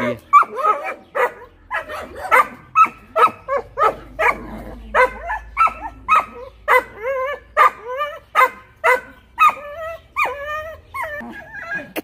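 Bakarwal dog on a chain barking over and over, about two barks a second, guarding against the visitors.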